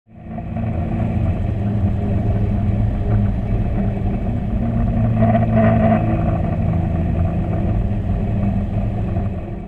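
Boat engines droning steadily while trolling, picked up underwater, fading in at the start and out near the end.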